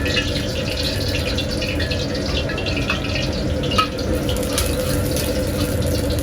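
Steady hiss and hum at a street-food cooking station making fried rice, with scattered light clinks and taps of utensils throughout and one sharper tap about four seconds in.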